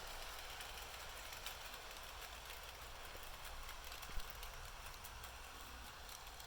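Bachmann Spectrum GP30 and GP35 model diesel locomotives running on track: a faint steady whir with scattered light clicks, and one sharper click about four seconds in.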